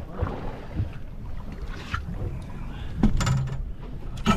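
Wind on the microphone over a low steady hum, typical of a fishing boat at sea, with two sharp knocks about three seconds in and near the end.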